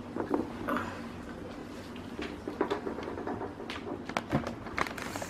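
Scattered light clicks and taps of small objects being handled.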